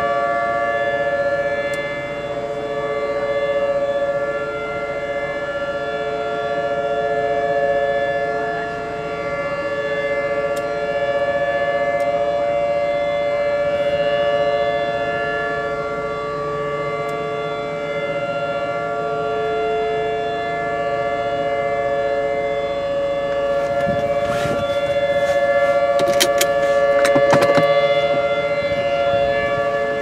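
Outdoor tornado warning sirens, a Federal Signal 3T22 and Whelen sirens, sounding a steady chord of several held notes that slowly swells and fades, heard from inside a parked car. A few sharp clicks come near the end.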